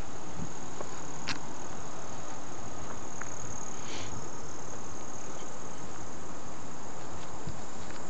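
Crickets calling in one continuous, high, steady trill, with a couple of faint clicks.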